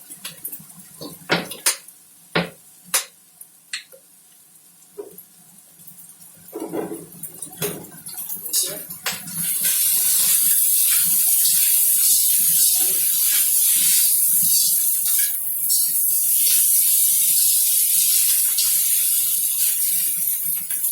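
A spatula clinks and scrapes against a wok as fried rice is stirred. From about ten seconds in, a loud, steady sizzle of frying joins it, and the clinks go on over it.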